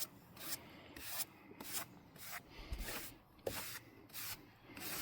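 Rhythmic scraping strokes, about two a second.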